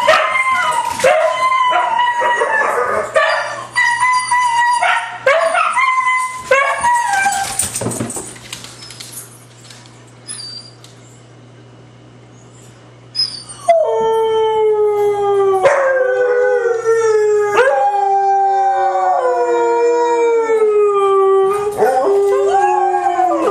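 Several huskies howling together, their voices overlapping in long, wavering howls. The howling dies away about eight seconds in, and after a pause of some five seconds it starts again louder, with long howls that slowly fall in pitch.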